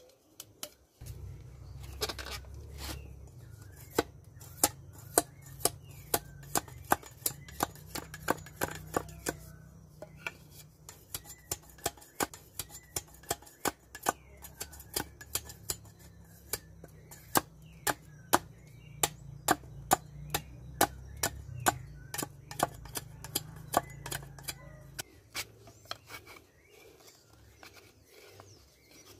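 Machete chopping into a thick bark-covered branch: a long series of sharp wooden chops, about two a second, over a steady low hum. The chops stop a few seconds before the end.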